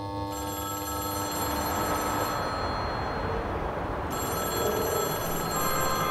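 Telephone ringing: two rings of about two seconds each, with a pause of under two seconds between them, over a steady low hum.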